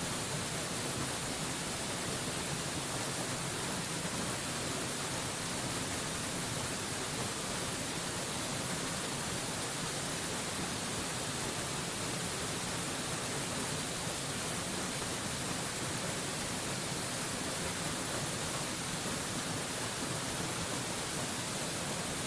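Waterfall rushing: a steady, even hiss with no changes.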